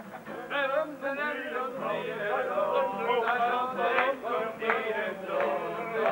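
A group of people singing together, several male voices overlapping in a chant-like song.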